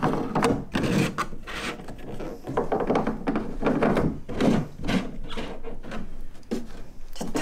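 Hollow plastic parts of a children's slide being handled and pressed together: a run of irregular knocks, clicks and rubbing as the pieces are fitted.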